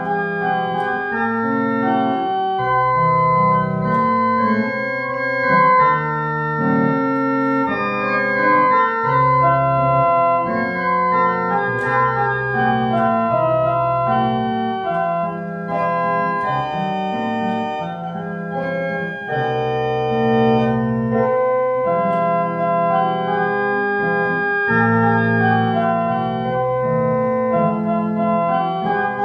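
Church organ playing a hymn tune in held chords that change about every second, at a steady volume.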